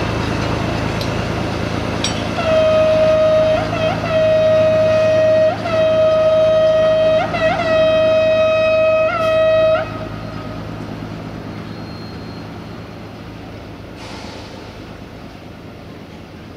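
LDH45 diesel-hydraulic shunting locomotive sounding its single-tone horn in a string of long blasts with short breaks, for about seven seconds. Under it the locomotive's diesel engine runs steadily, fading as the locomotive draws away.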